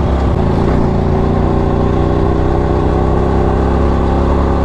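Hyosung GT-R sport bike's V-twin engine running at a steady cruise, its pitch holding even, heard from the rider's seat.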